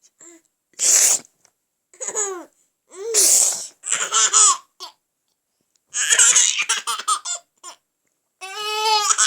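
Baby laughing in several bursts of giggles, with rough breathy bursts in between.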